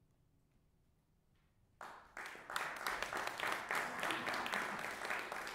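Near silence after the final note, then audience applause breaks out about two seconds in and quickly swells into a full round of clapping.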